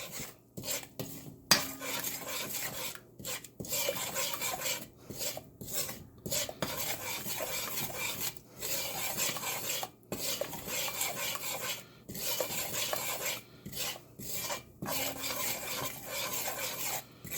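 A spoon scraping around the bottom of a pot, stirring curry powder into hot oil, in repeated strokes with short pauses between them.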